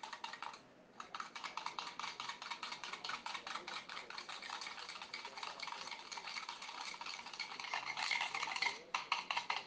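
Wire balloon whisk beating a thick coffee, sugar and hot-water mixture in a plastic bowl by hand, whipping it into dalgona coffee foam; its wires tick rapidly against the bowl. The whisking pauses briefly about a second in and stops near the end.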